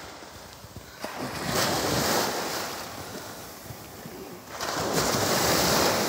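Small sea waves breaking and washing up a sandy beach, in two surges that swell and fade a few seconds apart.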